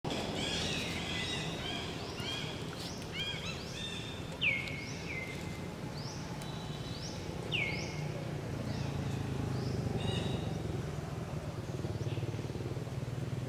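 Wild birds chirping and calling repeatedly, with a few sharp downward-sweeping calls standing out, over a steady low hum of outdoor background noise.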